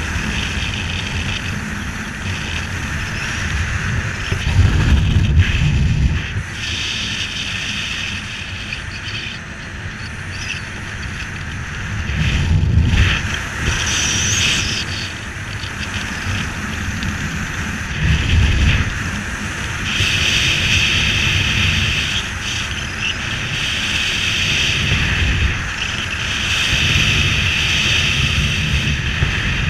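Wind rushing over a helmet camera's microphone during parachute canopy flight, a steady hiss with low buffeting gusts every several seconds.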